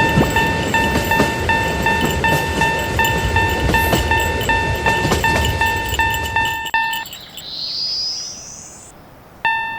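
Railroad crossing warning bell clanging over the rumble of a passing train; both stop about seven seconds in. A rising whistling glide follows, and the crossing bell starts again just before the end.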